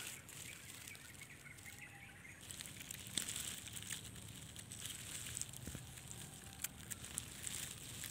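Faint outdoor ambience: a steady hiss with scattered small clicks and rustles, and a few faint high chirps in the first second or so.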